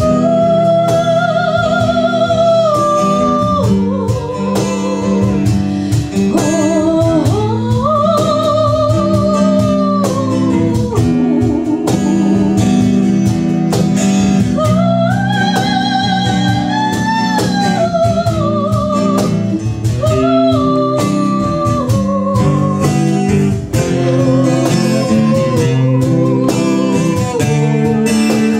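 A woman singing a slow melody with long held notes and vibrato, accompanied by acoustic guitar.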